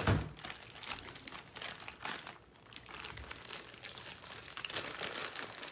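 Plastic freezer bag crinkling as ground beef and marinade are squished and kneaded by hand inside it, in irregular crackles, with a thump right at the start.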